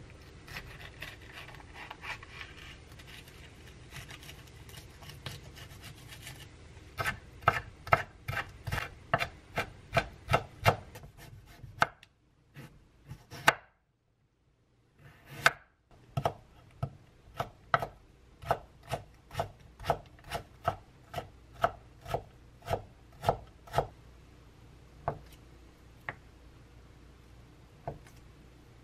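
Chef's knife finely chopping green chili and carrot on a wooden cutting board: quick, regular knocks of the blade on the board, about three a second, with a short break in the middle and a few slower, scattered strokes near the end.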